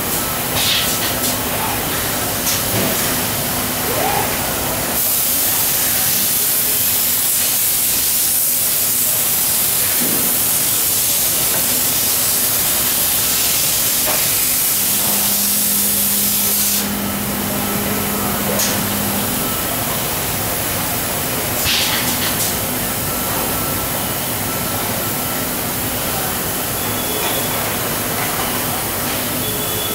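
Automated glue cell running with pneumatic clicks and machine noise. A loud, steady compressed-air hiss starts about five seconds in and cuts off suddenly some twelve seconds later. A low electric motor hum sounds briefly in the middle.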